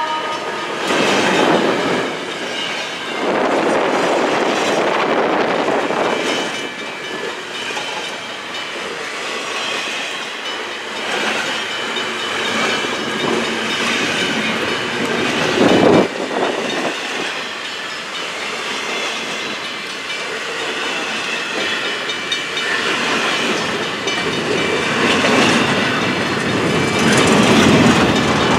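Double-stack intermodal container cars of a freight train rolling past close by: a steady rumble with the clickety-clack of wheels over the rail joints, and one brief louder burst about halfway through.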